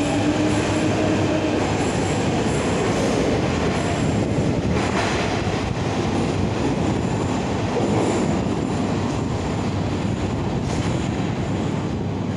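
Metro train pulling out of the station and running off into the tunnel: a steady rumble of wheels on rail, with a motor whine in the first second or two.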